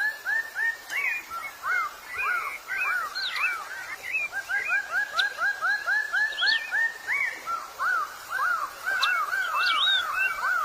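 Birds calling: a fast, even string of short arched notes, about four a second, pausing briefly a couple of times, with scattered higher chirps over it.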